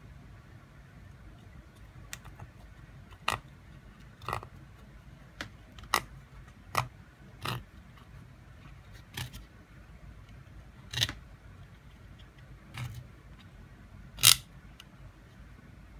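Irregular clicks and short scrapes as the plastic and fabric parts of a Google Home Mini are handled and pried apart with tools, about ten over the stretch, the loudest near the end, over a faint low hum.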